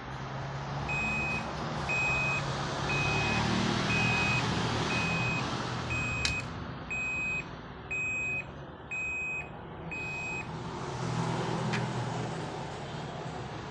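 An electronic beeper sounding ten even, high beeps about once a second, then stopping, over a steady low engine-like rumble.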